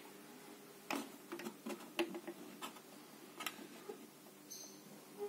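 Scattered light clicks and taps from handling a signal generator's alligator-clip test lead and controls, a few irregular ticks over faint background hum.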